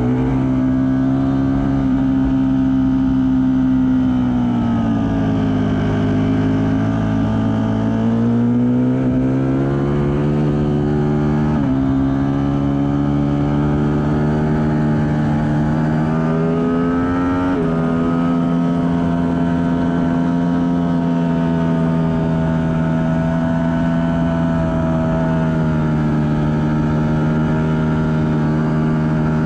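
Onboard sound of a Ducati Panigale V4 S's V4 engine at speed on track, with wind rushing past the camera. The engine note dips as the rider rolls off through a corner, then climbs hard under acceleration. It drops sharply twice, about 12 and 17 seconds in, at upshifts from third to fourth and then to fifth, and then holds steady at high revs.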